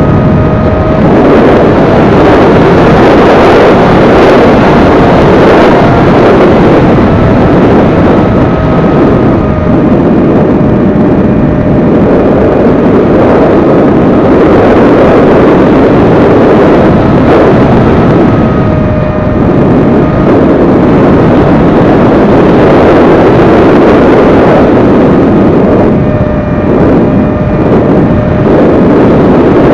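XK A1200 electric RC airplane heard from its onboard camera in flight: loud rushing wind buffeting the microphone, with the motor's thin whine holding a near-steady pitch that wavers a little as the plane banks and throttles.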